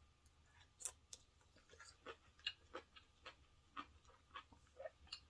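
Faint chewing with soft mouth clicks, about two to three a second, as pho tripe is eaten.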